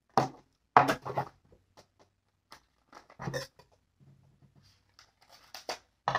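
Hands handling and opening a small product package on a desk: a scattering of short clicks and brief rustles.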